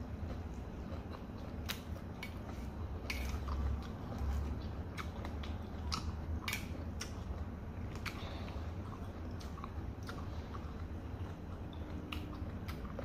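Close-up eating sounds: chewing a mouthful of fried noodles, with irregular wet smacking clicks of the mouth and a steady low hum underneath.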